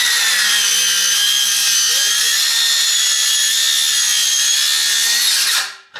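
Milwaukee circular saw with a resharpened Diablo Steel Demon 7-1/4" steel-cutting blade running at full speed while it cuts through square steel tube. It gives a steady high whine that sags slightly in pitch under load, then winds down and stops about five and a half seconds in.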